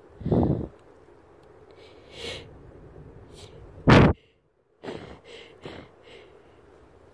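A person sneezing, with a strong sneeze about half a second in and a very loud, sharp one about four seconds in, and quieter sniffs and breaths between. The sneezing is set off by sniffing a powder while already sick.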